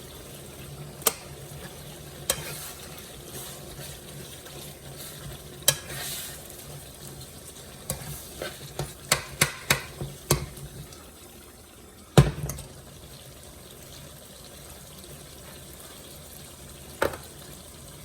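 Kitchen utensils and food knocking and clinking against cookware: scattered sharp knocks, a quick run of about eight in the middle and a single louder knock shortly after. Under them is a steady low hum that fades out about two-thirds of the way through.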